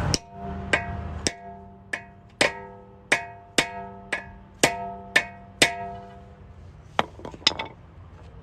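Hammer blows driving a lug nut extractor socket onto a locking lug nut: about a dozen sharp metallic strikes, roughly two a second, each ringing briefly, then a few lighter taps near the end.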